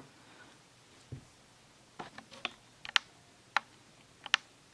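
Irregular, sharp light clicks and taps from two smartphones being handled side by side, starting about two seconds in, with a soft low thump about a second in.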